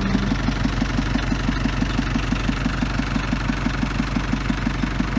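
Engine of a homemade vineyard ploughing machine running steadily with a fast, even beat.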